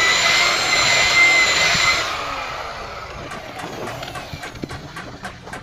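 A small high-speed electric tool motor running with a steady high whine, switched off about two seconds in. Fainter noise and a series of light clicks follow.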